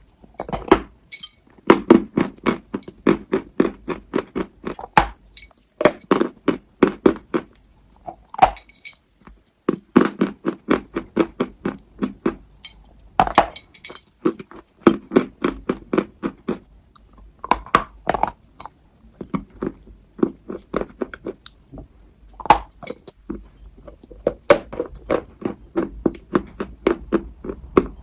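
Close-up chewing of something hard and crunchy, rapid crisp crunches several a second, coming in runs with short pauses between bites.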